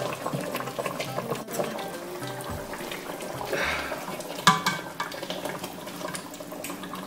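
Chicken cooking in a stainless-steel pot while it is turned with a spatula and spoon: utensils scraping and knocking against the pot over the cooking sound. The sharpest knock comes about four and a half seconds in.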